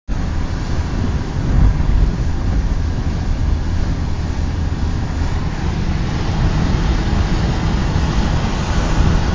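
Car driving on a wet road, heard from inside the cabin: a steady, loud low rumble of engine and tyres with an even hiss over it.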